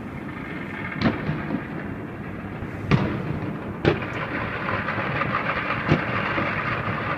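Chinese New Year fireworks: four loud bangs spaced one to two seconds apart, over a continuous crackle and rumble of many fireworks and firecrackers going off around the city. The crackling grows denser about halfway through.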